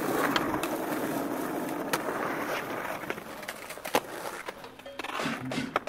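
Skateboard wheels rolling on rough asphalt, a steady rushing sound, broken by several sharp wooden clacks of the board popping and landing, the loudest about four seconds in.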